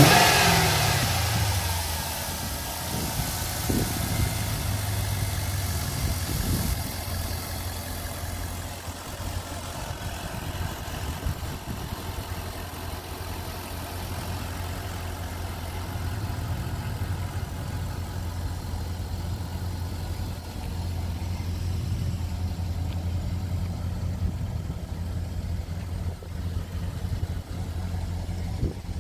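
Holden VY SS ute's LS1 V8 coming down from a hand-worked throttle blip in the first couple of seconds, then settling into a steady idle.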